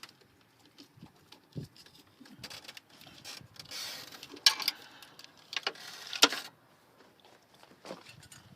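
Wire cutters clipping and hands working automotive wiring and connectors: irregular rustling and small clicks, a short hiss, and two loud sharp snaps about four and a half and six seconds in.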